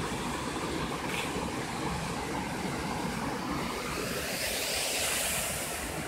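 Waterfall pouring into a rock pool: a steady rushing roar that grows a little louder and hissier near the end.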